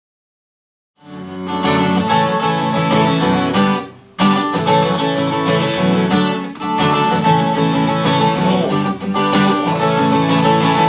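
Acoustic guitar strumming an instrumental introduction to a folk song. It starts about a second in and breaks off briefly just before four seconds.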